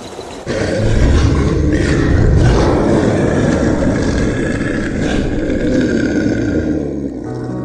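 Big cats roaring and growling, loud and deep, starting abruptly about half a second in.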